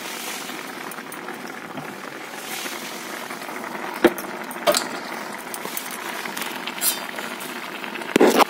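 Milky vegetable curry simmering in a kadai, a steady bubbling hiss, with a few sharp clinks of utensils, the loudest near the end.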